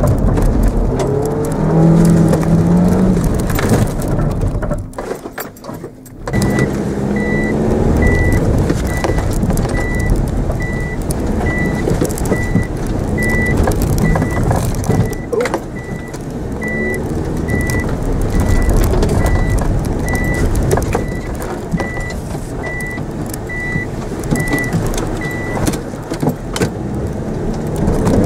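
Mitsubishi Mirage engine heard inside the cabin, revving and easing off as the car is driven hard, with a brief lull about five seconds in. From about six seconds in, a high electronic beep repeats a little faster than once a second for nearly twenty seconds, then stops.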